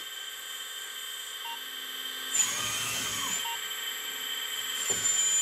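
An RC hydraulic excavator's electric hydraulic pump runs steadily with a high whine. About two seconds in, the electric track drive motors run under load for about a second, and briefly again near the end.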